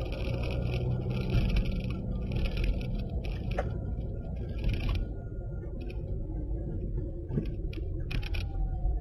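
Car cabin noise while driving: a steady low rumble of engine and tyres, with a hiss that cuts in and out during the first half and a few light clicks.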